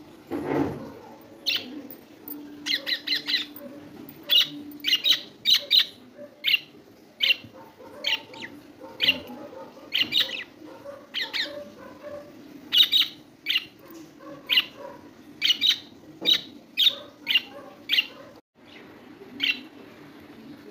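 Pet budgerigars chirping: a string of short, sharp, high calls, one or two a second, sometimes in quick runs of three or four.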